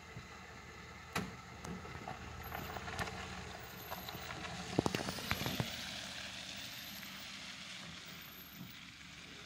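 Ford pickup truck driving away over a muddy, slushy dirt lot, its engine running steadily under tyre noise that swells in the middle. A few sharp clicks and crunches come through, most of them bunched in the middle.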